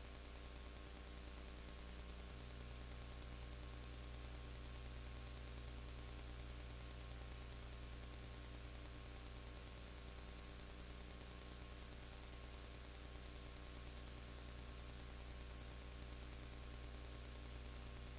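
Steady electrical hum with hiss from the recording itself. No game or crowd sound stands out; the pitch of the hum shifts slightly about two seconds in.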